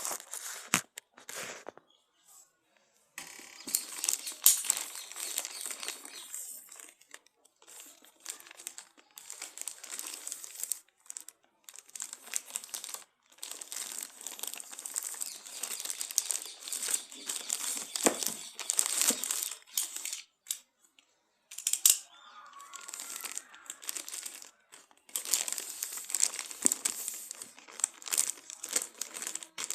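Plastic packaging of a phone box crinkling and rustling as it is handled and unwrapped, in stretches broken by sudden short gaps.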